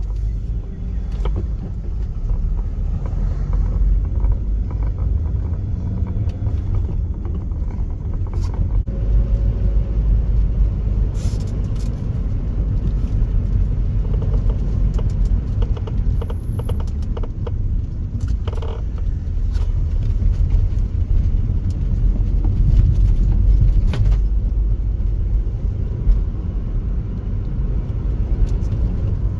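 Inside a moving van's cabin: a steady low rumble of engine and tyre road noise.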